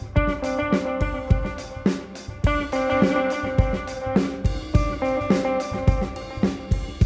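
Fender Meteora electric guitar through a modelling amp, playing sustained, ringing notes over a steady shuffling beat on an electronic drum kit. It is an ambient instrumental jam with a Celtic shuffle feel.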